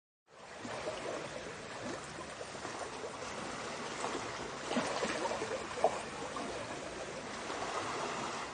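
Water lapping and trickling, a steady wash of small waves with faint crackles, broken by one sharp click about six seconds in.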